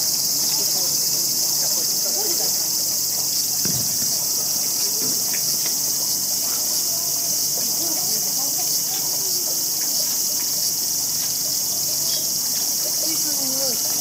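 A steady, high-pitched chorus of insects, with faint voices murmuring in the background.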